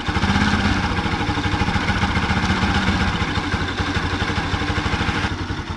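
Bajaj Pulsar NS200's single-cylinder engine running steadily, carrying an abnormal noise from the engine that a mechanic traced to a burnt stator. The higher, hissy part of the noise eases off near the end.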